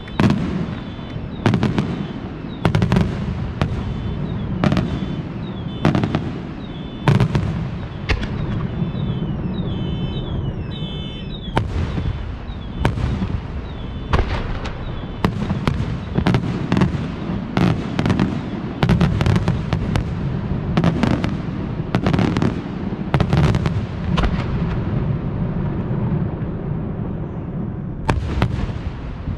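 Aerial firework shells bursting in a steady barrage: sharp bangs come about once or twice a second over a continuous low rumble of echoing reports.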